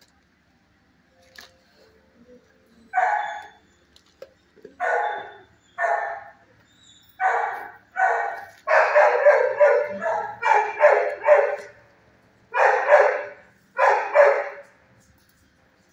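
Shelter dogs barking in the kennels: after a quiet start, single barks about a second apart, then a fast run of barks in the middle, and two more near the end.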